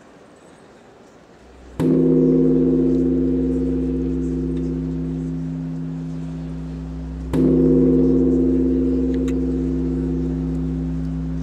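A gong struck twice, about five and a half seconds apart; each stroke rings on in a steady hum that fades slowly, its upper tones wavering slightly.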